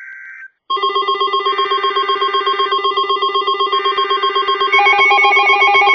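The end of an Emergency Alert System SAME data burst, a steady high two-tone chirp, then weather alert radios going off: a loud, rapid, evenly pulsing electronic alarm, joined by further alarm tones partway through and growing louder near the end. They sound because a new alert has come over NOAA Weather Radio.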